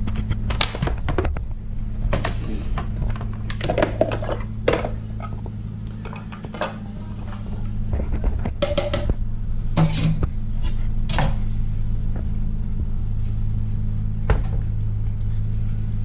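Kitchen handling clatter: knocks as a plastic food processor bowl is lifted off its base and emptied, with utensils set down on a plastic cutting board. A steady low hum runs underneath.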